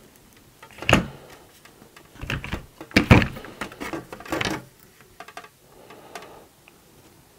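Hard plastic toy parts being handled on a workbench: a series of knocks, taps and clatters, the loudest a few seconds in, followed by a few lighter clicks.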